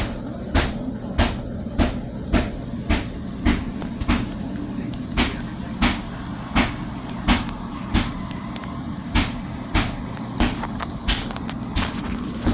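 Loud, regular strikes of a hammer or similar tool knocking old ceramic tiles off a bathroom wall, about three blows every two seconds. Heard from outside the bathroom.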